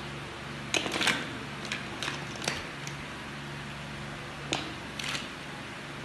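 Plastic toy building blocks clicking and clattering as they are snapped together and picked out of a pile: a handful of short sharp clicks spread over a few seconds, over a low steady hum.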